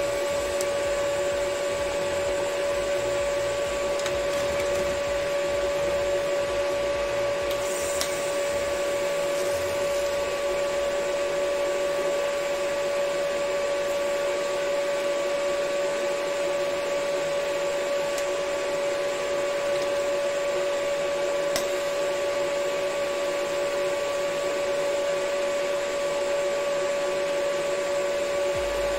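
TIG welding arc burning on a steel tube: a steady hum with a constant high, even tone over a hiss.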